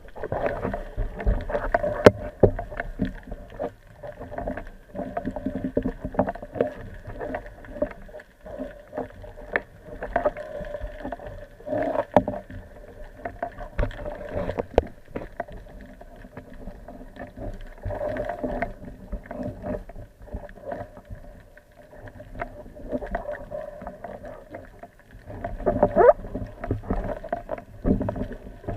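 Water sloshing and gurgling against the camera in irregular swells, with scattered sharp knocks.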